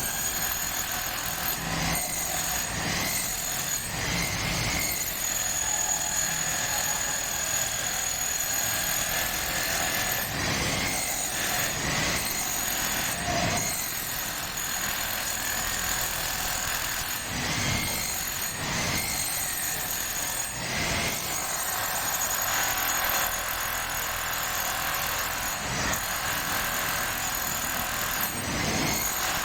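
Power drill drilling into the floor, running steadily with small swells in pitch and load.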